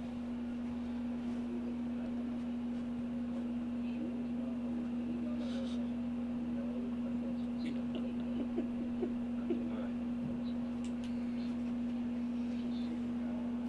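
A steady low hum holding one pitch, swelling in over the first couple of seconds, with faint small rustles and ticks around it.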